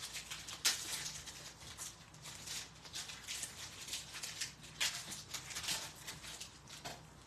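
Foil trading-card pack wrappers crinkling and tearing open, with cards slid out of the pack: an uneven run of short crackles and rustles.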